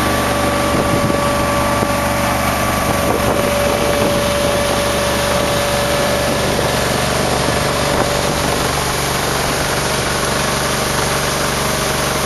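John Deere 9650 STS combine running steadily while harvesting soybeans: an even machine drone with a steady high whine over it.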